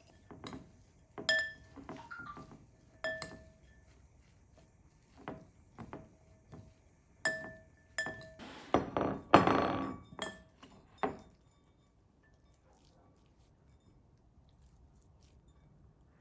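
Glass and ceramic dishes clinking as they are handled and set down, a series of short ringing knocks, with a longer rough rustling noise about nine seconds in.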